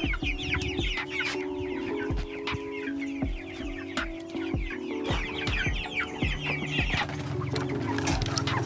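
A flock of young broiler chickens cheeping, many short falling calls overlapping continuously, over background music with held notes and a steady beat.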